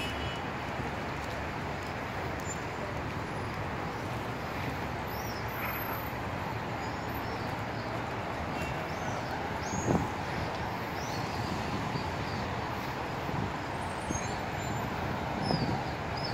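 Steady road traffic noise, with small high bird chirps on and off through the middle and a brief thump about ten seconds in.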